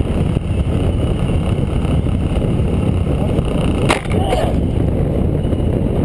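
Steady wind rush and road noise from a motorcycle at highway speed, broken about four seconds in by one sharp thud as the bike strikes a deer.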